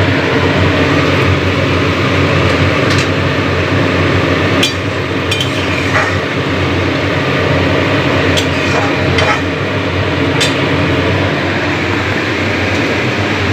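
Metal spoon clinking against a steel cooking pan as curry is stirred: a few light, separate clinks over a steady, loud rushing background noise.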